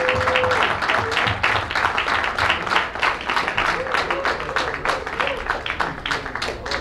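A crowd applauding with dense, steady clapping, with a brief held tone in the first half second.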